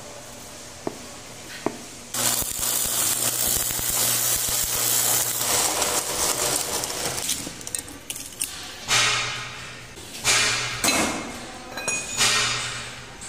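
Stick (arc) welding: the electrode's arc crackles and hisses steadily for about six seconds as it tacks a pipe to a steel flange, with a low electrical hum beneath. It is then struck again in three or four short bursts, each starting sharply and fading. A couple of light ticks come before the first arc.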